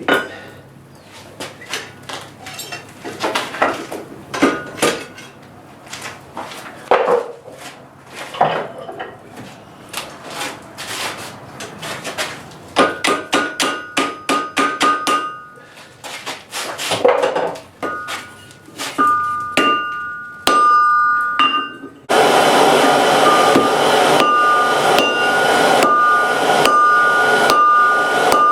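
Hammer blows on an anvil, irregular strikes with the anvil ringing after them. About 22 s in, a loud steady rushing noise starts suddenly under the continuing blows.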